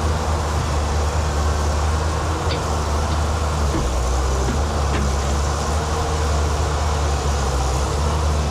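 Excavator's diesel engine running steadily as a low drone, with a few faint clicks about two and a half and five seconds in.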